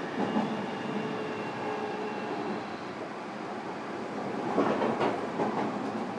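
Inside a JR Kyushu 305 series electric train's motor car running at speed: a steady rumble of wheels on rail, with faint steady whine tones that fade away. About four and a half seconds in, a quick cluster of wheel knocks as the bogies cross a rail joint.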